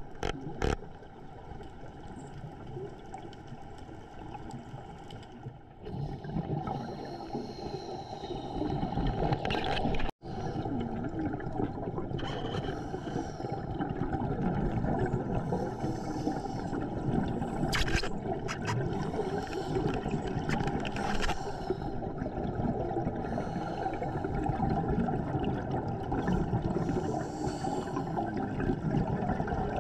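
Underwater sound around a diver: a steady rushing of water, with the bubbling of exhaled breath every few seconds.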